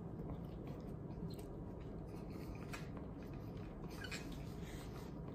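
Quiet chewing of a mouthful of ramen noodles, then wooden chopsticks stirring noodles in a cup noodle container, with a couple of faint clicks.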